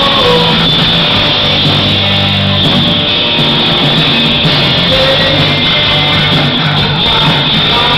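Live rock band playing loud, with electric guitars and a drum kit driving a full, steady wall of sound and held low bass notes. A male lead voice sings at times.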